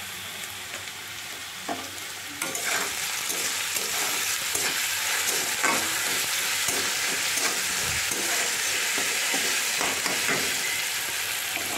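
Potato sticks sizzling as they fry in oil in a steel kadai, with a spatula repeatedly scraping and stirring them against the pan. The sizzle grows louder a couple of seconds in, once the stirring starts.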